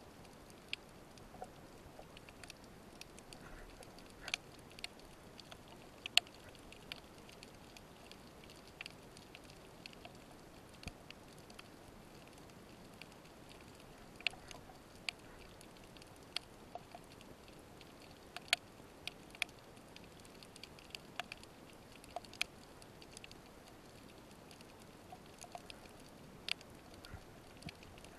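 Quiet underwater reef ambience: a faint steady hiss with scattered sharp clicks and ticks, roughly one every second or two.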